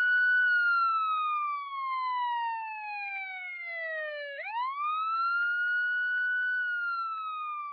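Police-style wailing siren: one clean tone that rises, holds, then slowly falls, and sweeps back up about four and a half seconds in for a second cycle.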